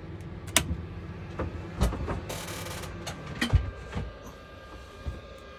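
Temperature-controlled hot air desoldering gun being switched on: several clicks and knocks, a brief hiss about two and a half seconds in, then a faint steady whine as it runs.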